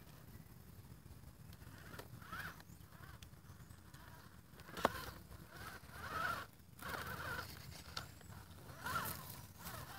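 Vaterra Twin Hammers RC rock crawler's electric motor and gears whining in short bursts that rise and fall with the throttle as it crawls over rocks. A sharp knock comes about five seconds in.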